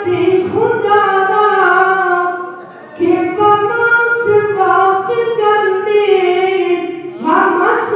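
A man singing unaccompanied into a microphone in a high voice, holding long, slightly wavering notes, with a brief pause for breath about two and a half seconds in.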